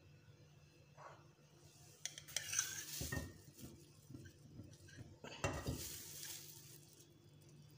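Nonstick frying pan shifted and swirled on a gas-stove grate to spread hot oil: two brief bursts of metal scraping and clatter, a few seconds apart.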